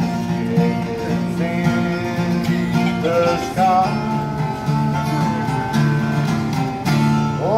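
Acoustic guitar strummed in a steady country rhythm, with a harmonica in a neck rack playing a bending melody over it.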